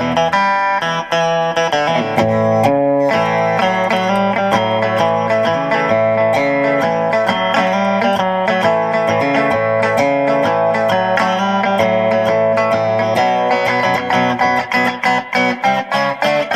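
Monoprice Indio Retro Classic Tele-style electric guitar played through an amplifier: ringing chords, each held for a second or more, then quicker single picked notes near the end.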